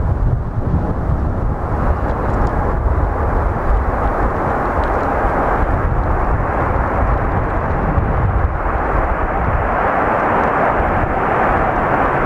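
Cargolux Boeing 747-8F's four GEnx-2B turbofans running as the jumbo freighter rolls out on the runway after landing, a steady jet roar that grows stronger in its middle range over the last few seconds as the plane nears.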